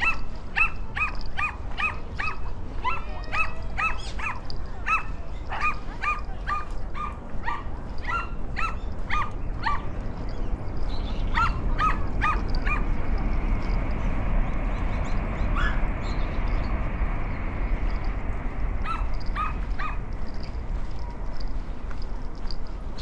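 A small dog yapping in quick runs of short, high barks, about two a second. Most come in the first ten seconds, then a short run around the middle and another near the end. A steady low rumble lies underneath.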